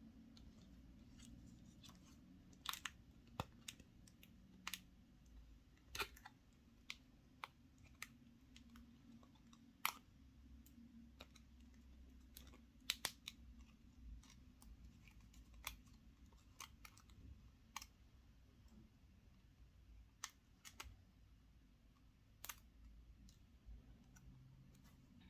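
Sparse, sharp small clicks and light taps, one every second or two, over a faint, steady low hum: small plastic pieces being handled, like the capsule and toy parts from a chocolate surprise egg.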